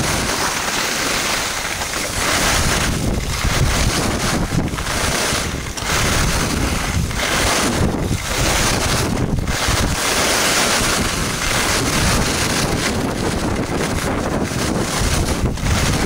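Wind rushing over an action camera's microphone and skis hissing and scraping on packed snow during a fast downhill run at about 30 km/h. The noise is steady and loud, easing briefly about once a second or so.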